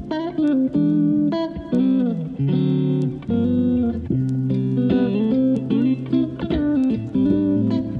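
Background music led by guitar: plucked, sliding notes over a bass line.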